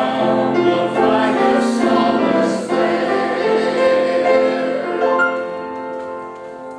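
Congregation singing a hymn with piano accompaniment, ending on a held final chord that fades away near the end.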